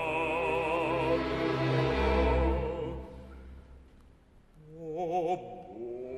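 Operatic baritone singing with an orchestra. A sung note with vibrato gives way to a held orchestral chord that dies away almost to quiet, and the baritone takes up the line again near the end.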